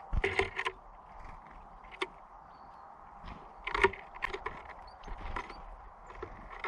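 Small birds at a feeder: a series of sharp knocks and taps as they land and peck, with a few faint high chirps between them.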